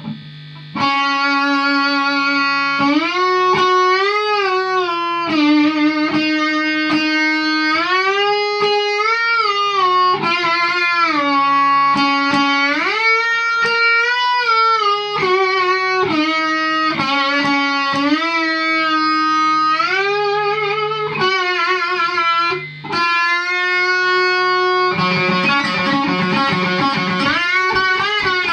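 Homemade one-string electric guitar, a single string on a board amplified through an electric-guitar pickup, playing a single-note melody that slides up and down between held notes. Near the end the playing turns faster and busier.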